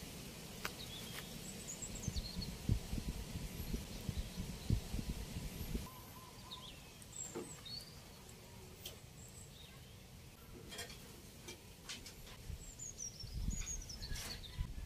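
Birds chirping now and then in short high calls over faint outdoor background noise, with a low uneven rumble that eases off about six seconds in. A few soft clicks of a metal spoon serving stew onto rice.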